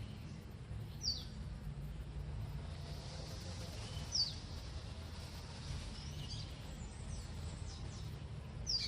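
Small songbird giving short, high, downslurred chirps, three clear ones a few seconds apart with fainter notes between, over a steady low background rumble.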